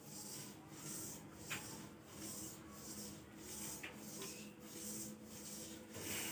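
Faint rhythmic rubbing swish repeating about one and a half times a second, with a couple of faint clicks.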